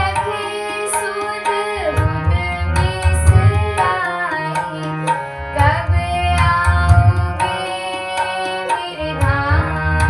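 Devotional bhajan music: hand-drum strokes in recurring rhythmic phrases under gliding, ornamented melodic lines.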